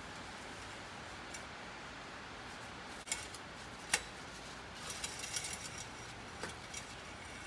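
Faint steady hiss with a few light clicks, then a brief patter of small metallic clinks about halfway through: hands and a shop rag working around a truck's diesel engine bay.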